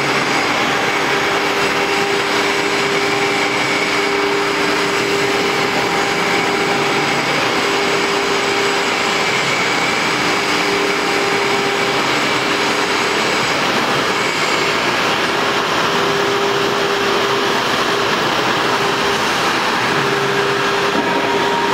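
R-1325ATC CNC router running: a steady loud machine noise with a high whine from the spindle and a mid-pitched tone that drops out and returns every few seconds as the head moves.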